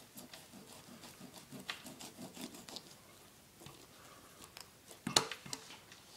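Knife cutting into a walleye just behind the pectoral fins toward the backbone: faint scattered scrapes and clicks of blade and hands on the fish and cutting board, with one sharper click about five seconds in.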